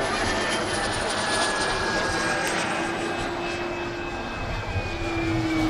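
Turboprop turbine engine of an RC scale model Embraer T-27 Tucano in flight: a steady high whine over a lower engine tone, with the pitch slowly sinking as the model passes.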